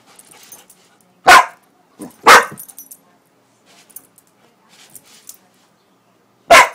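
A Pitbull-Corgi mix dog barking loudly three times: two barks about a second apart, then a third near the end.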